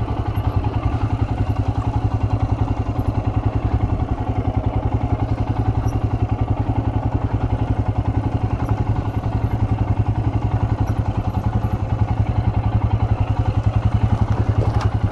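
Royal Enfield Himalayan's 411 cc air-cooled single-cylinder engine running steadily at low revs with an even, fast pulse, the pitch holding level throughout, as the bike descends a steep slope.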